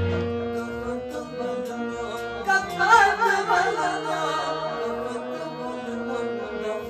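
Man singing a Kashmiri song over held keyboard notes. The drum beat drops out at the start, and about two and a half seconds in he enters with a long, wavering, ornamented sung line.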